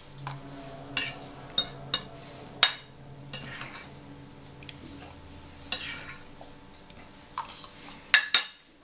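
Metal fork clinking and scraping against a ceramic plate while picking up pasta: a dozen or so sharp clinks at irregular intervals, with a quick cluster near the end.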